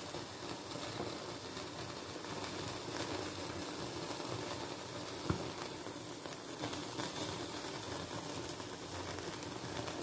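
Steady hiss of marinated paneer skewers grilling on a wire rack over an open gas burner flame, with one short click about five seconds in.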